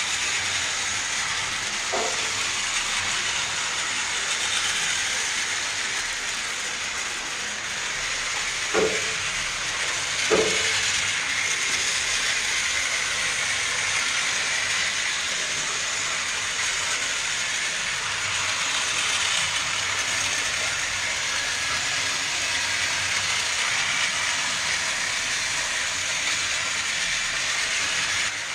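Battery-powered toy trains running on plastic track: a steady whirr from the small motors and gears, with the wheels rattling on the track. Three short clacks stand out, one about 2 seconds in and two close together about a third of the way through.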